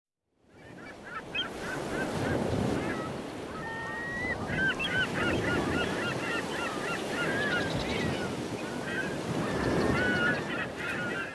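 Sea ambience of waves washing, with a crowd of birds giving many short, quick calls over it; it fades in about half a second in and cuts off suddenly at the end.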